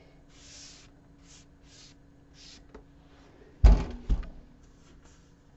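A few soft swishes of handling, then a wooden MDF board is set down flat on a towel-covered bench with two dull thumps a split second apart, about four seconds in.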